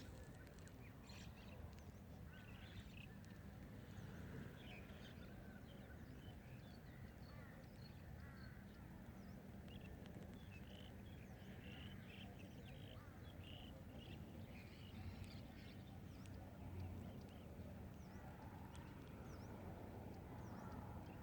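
Faint chirps and calls from several birds, short notes scattered throughout, over a steady low hum.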